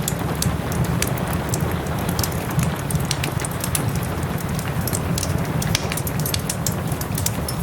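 Steady soft rain with a wood fire crackling in a fireplace, its frequent small pops and snaps scattered over the even hiss of the rain.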